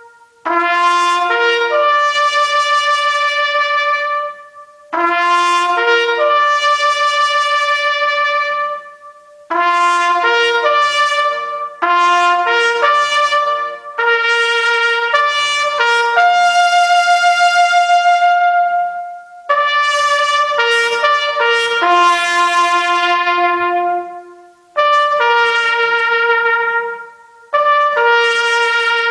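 Solo trumpet playing a slow ceremonial call in long held notes, phrase by phrase with short breaks between. It is the call sounded for a standing moment of silence.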